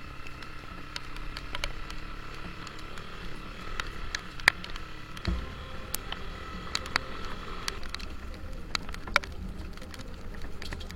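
Motorcycle engine running at steady low revs, with many scattered sharp clicks and taps over it.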